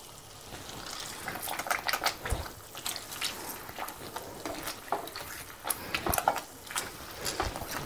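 Metal potato masher pressing dates softened in hot ghee in a non-stick kadhai: irregular wet squishing with many light clicks and knocks of the masher against the pan.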